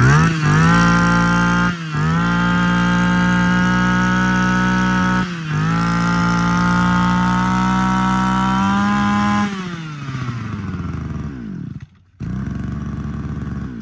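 Echo (Kioritz) 23cc two-stroke brush cutter engine revved up to full throttle and held high, with two short dips in pitch. About nine seconds in it slows back toward idle, cuts out for a moment near the end, then runs on at a lower speed.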